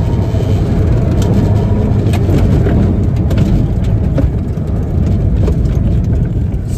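Loud wind and tyre noise from a 2010 Tesla Roadster driven hard through an autocross course, with a steady low rumble and scattered short knocks. The electric car has no engine note.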